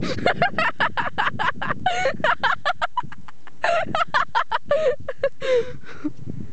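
A person laughing hard in rapid bursts, in two spells with a short break a little before halfway through.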